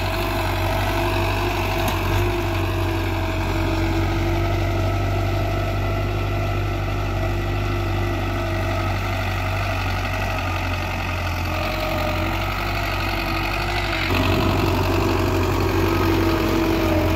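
Belarus tractor's diesel engine running steadily under load as it pulls a disc harrow through dry soil. It gets a little louder about three-quarters of the way through.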